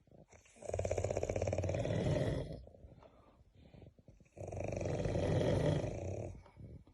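Heavy snoring: two long snores of about two seconds each with a quiet pause between, each a rapid fluttering rattle likened to a helicopter.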